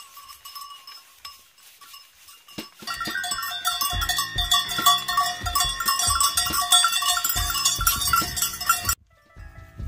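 Bells on a herd of goats ringing and clanking, faint at first and then loud and dense from about three seconds in, with low knocks underneath. The sound cuts off suddenly near the end.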